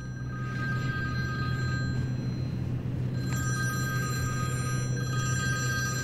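A phone ringing: two rings of about two seconds each with a short pause between them, over a steady low hum.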